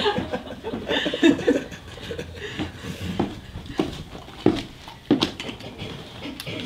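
A small group laughing softly after a joke, trailing off after the first second or so, followed by a few light knocks and clicks.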